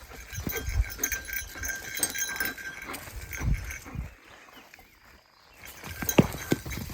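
German shepherd moving close by with a stick, the small bell she wears jingling with a steady ringing for the first few seconds over thumps and scuffling. Two sharp clicks come near the end.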